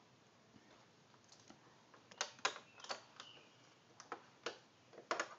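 Magnetic plastic alphabet letters clicking and clacking against a fridge door and each other as a child moves them: a scatter of light taps, several in quick pairs.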